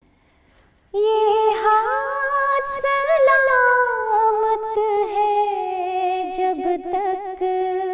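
A woman singing a slow wordless melody, with long held notes and small ornamental turns, starting about a second in.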